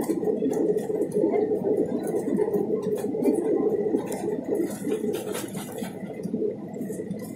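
Jet airliner cabin noise during the landing roll: a steady dense rumble from the engines and the wheels on the runway, with small cabin rattles. It eases off slightly near the end.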